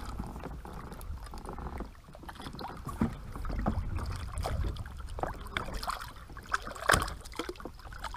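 Water sloshing and splashing around a fishing kayak as a hooked yellowtail is hand-lined up to the hull, over a steady low rumble. A few sharp knocks, the loudest about seven seconds in.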